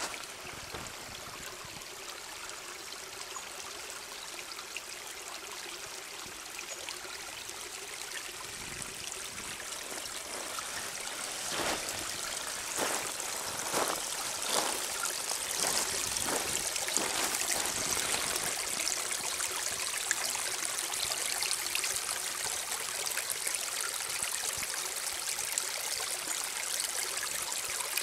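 Small shallow creek trickling over gravel, getting louder about a third of the way in and then holding steady, with a few short knocks around the middle.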